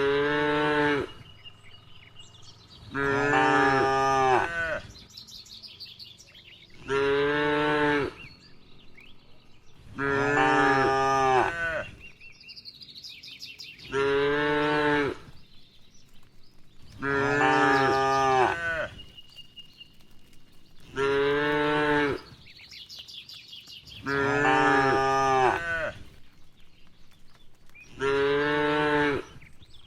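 Cattle mooing: about nine loud, drawn-out moos at very even intervals, alternating shorter and longer calls.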